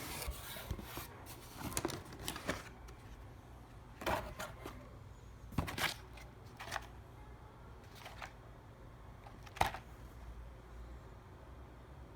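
Packaging being handled and opened by hand: scattered clicks, taps and rustles, the sharpest click nearly ten seconds in.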